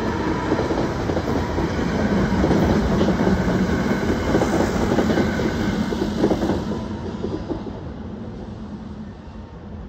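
SEPTA Silverliner IV electric commuter train rolling through a grade crossing, its wheels clattering over the rails. The sound fades away after about seven seconds as the last car clears.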